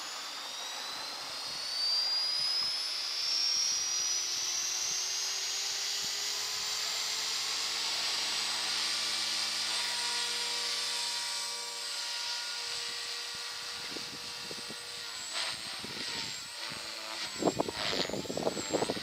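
Thunder Tiger MiniTitan E325 electric RC helicopter spooling up: the motor and gear whine rises in pitch over the first several seconds, then holds steady at head speed. Near the end, gusts of wind buffet the microphone in rough bursts while the whine wavers.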